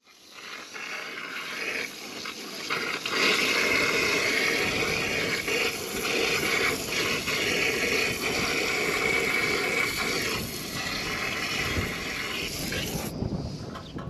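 Garden hose sprayer on its jet setting, spraying water up into a soffit vent and splattering off the vent and siding as it rinses out foaming air conditioner cleaner. The spray runs steadily, then eases off near the end.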